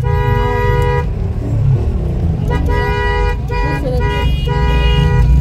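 Car horns sounding: a held blast that stops about a second in, then a run of shorter honks from about two and a half seconds in, over a steady low rumble.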